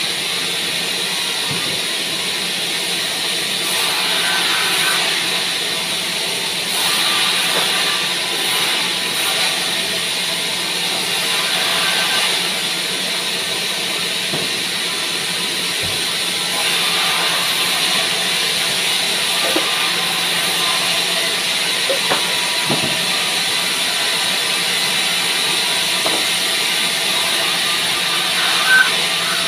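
Large sawmill band saw running and cutting through a pine log, a steady hiss over the machine's hum. A sharp knock near the end.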